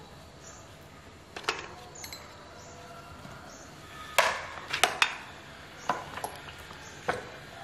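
Metal hand tools and chainsaw parts clinking and knocking as a gasoline chainsaw is taken apart by hand. About six sharp separate clinks, the loudest cluster about four to five seconds in.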